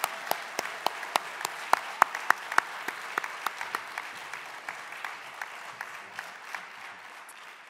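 An audience applauding, with loud, evenly spaced claps, about three a second, from one person clapping close to the microphone at the podium. The applause fades away near the end.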